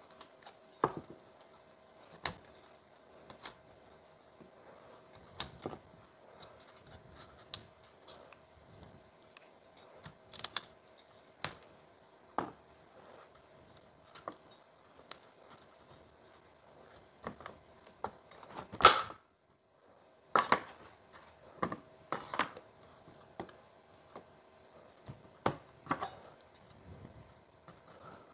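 Chef's knife cutting broccoli florets from the stalk, the blade tapping and knocking on a plastic cutting board at irregular intervals, with one louder knock about two-thirds of the way through.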